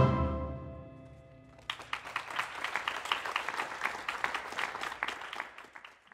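Steel pans' final chord ringing out and dying away over about a second and a half, followed by an audience applauding, which fades out near the end.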